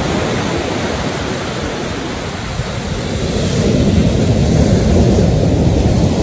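Ocean surf: waves breaking and white water washing up the sand in a steady rush, swelling louder about four seconds in.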